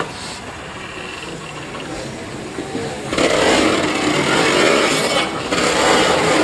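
C17 967, a Queensland Railways C17-class steam locomotive, running; its sound jumps to a loud, even rushing noise about three seconds in.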